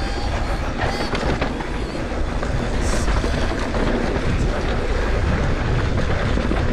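Mountain bike descending a dirt trail at speed: a steady rush of wind on an action camera's microphone over rumbling tyre and frame noise, with a few brief high squeaks in the first second and a half.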